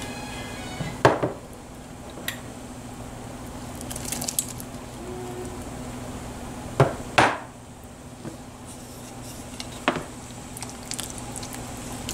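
A glass bowl and utensil clinking and knocking against a cooking pot as chopped tomatoes and bell peppers are tipped into a simmering stew: a handful of sharp knocks, the two loudest about seven seconds in, over a steady low hum.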